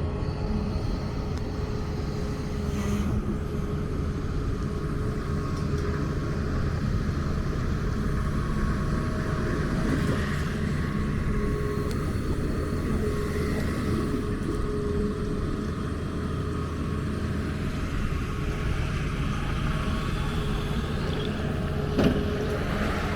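Motor vehicle engines running steadily in street traffic, a continuous low rumble with engine hum. A single sharp knock near the end.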